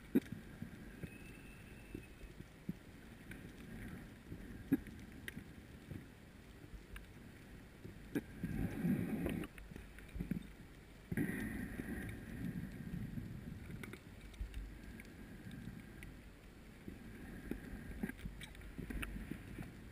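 Muffled underwater noise picked up by a camera in a waterproof housing: a steady low rumble with scattered faint clicks and knocks, and two louder rushing swells about eight and eleven seconds in.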